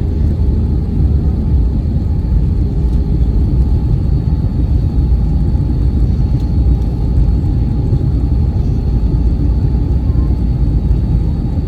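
Airbus A321 airliner cabin noise: a steady low rumble of engines and airflow with faint, steady high whines.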